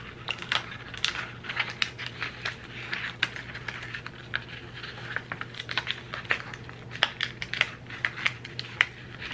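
Crinkling and crackling of a white adhesive sticker sheet as excess material is peeled by hand from its backing, in many short irregular crackles.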